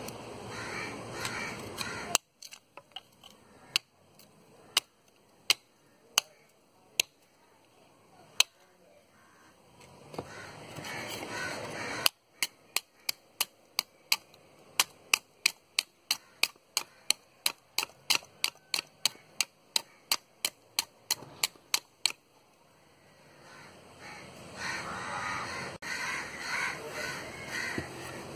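Knife blade chopping into a hand-held piece of wood, with sharp clicks scattered at first and then a quick, even run of about three a second for some ten seconds midway. A rougher, continuous sound fills the first two seconds and the last few.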